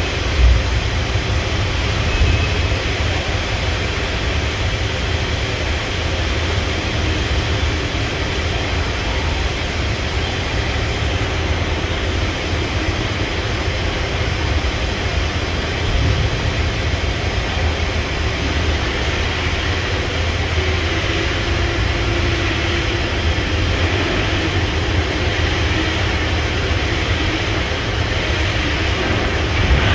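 Okuma MA-600H-II horizontal machining center running: a steady mechanical whir and rush of noise over a low rumble, with a few brief bumps.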